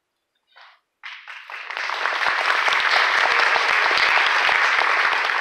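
Audience applauding: the clapping starts about a second in, builds quickly and then holds steady and loud.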